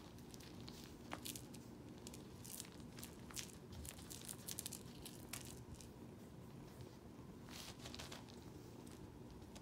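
Kittens' paws and claws scrabbling and scratching on fleece blankets as they play, heard as faint scattered clicks and scratches that come in short clusters.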